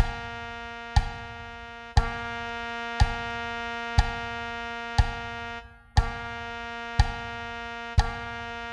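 French horn part for a beginner's exercise holding long notes on one pitch against a metronome clicking once a second. The note stops briefly a little past halfway and comes back in on the next click.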